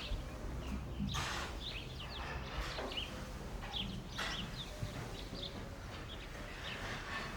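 Rural morning ambience: small birds chirping over and over in short, high calls, with a few brief rushes of noise and a low background hum.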